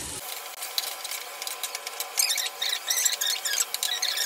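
Chicken pieces sizzling and crackling in hot oil in a frying pan, with many quick sharp crackles. The crackling grows denser and louder about two seconds in, as the pieces are stirred with a spatula.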